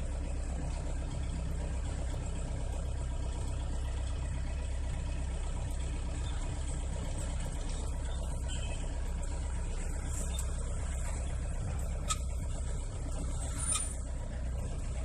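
Truck engine running steadily as the truck creeps along in slow traffic, heard from inside the cab. A faint click comes about twelve seconds in, and a brief high hiss near the end.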